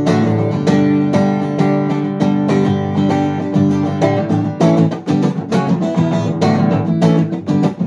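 Acoustic guitar strummed, playing chords in a steady rhythm.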